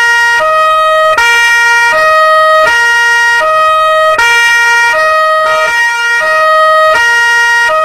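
European two-tone police siren, loud and steady, alternating between a lower and a higher note about every three-quarters of a second.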